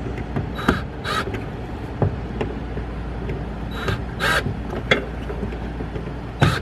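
A bird cawing: two pairs of short, harsh calls, one about a second in and another about four seconds in, with a few light knocks between them over a steady low hum.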